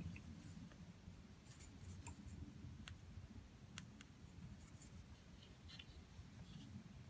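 Near silence: a low room hum with scattered faint, light clicks from the folding electrician's knives being handled on a cloth surface.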